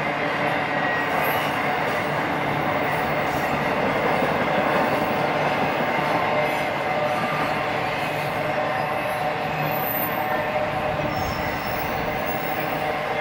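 Intermodal freight train's flatcars loaded with highway trailers rolling steadily past. There is a constant noise of wheels on rail, with steady high squealing tones from the wheels.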